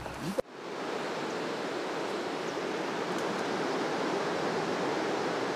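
Stream water running, a steady even rush that starts abruptly just after the start.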